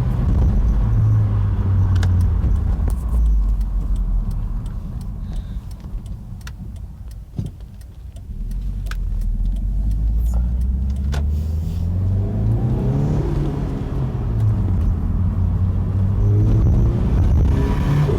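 Turbocharged car engine under way with its blow-off valve removed, dropping in pitch as the throttle is lifted, quieter for a few seconds with scattered clicks, then rising again under acceleration. Lifting off boost brings a noise that the owner cannot identify.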